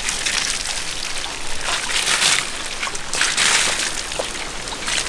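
Water being poured and splashed over the body of a large hanging stingray as it is washed, running off and splattering onto the ground in three or so louder surges.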